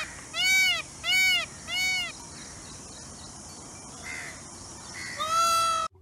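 Peacock calling: a quick run of three loud calls about half a second apart, each rising and then falling in pitch, then a faint call about four seconds in and another loud call near the end.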